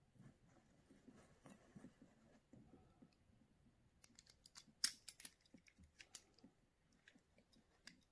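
Faint clicks and taps of small plastic parts being handled and pressed together on a Plarail toy train's motor chassis, with a cluster of sharper clicks about four to five seconds in.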